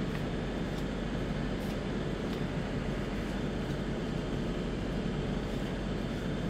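Steady low background hum of a small room, with a few faint soft ticks from trading cards being handled and laid down on a playmat.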